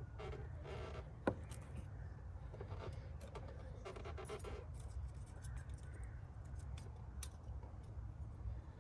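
Small plastic clicks and scrapes of a new D3S xenon headlight bulb and its plastic clip-in holder being handled and fitted together by gloved hands, with one sharp click a little over a second in, over a steady low hum.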